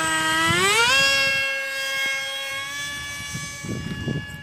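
Motor of a handmade RC Su-37 model jet whining at high throttle just after hand launch. Its pitch rises quickly in the first second, then holds steady and slowly fades as the plane climbs away. Low rumbling comes in near the end.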